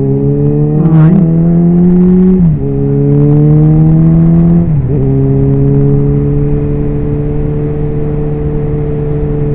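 Suzuki motorcycle engine pulling under acceleration, its note climbing, then falling sharply at two upshifts about two and a half and five seconds in. After the second gear change it runs at a nearly steady pitch.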